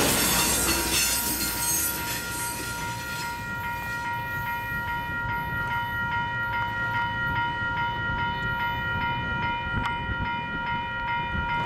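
Grade-crossing warning bell ringing in quick, regular strokes, with the rumble and clatter of the last cars of a double-stack intermodal train passing and dying away in the first few seconds.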